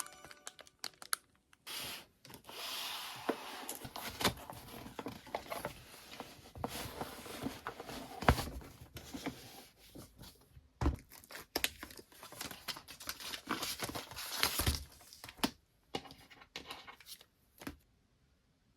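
Parcel packaging being torn open and crinkled by hand: an irregular run of tearing and rustling with sharp crackles, stopping about a second before the end.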